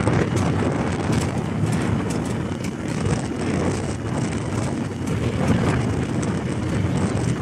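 Speedboat under way at speed: a steady loud rumble of engine and rushing water, with wind buffeting the microphone.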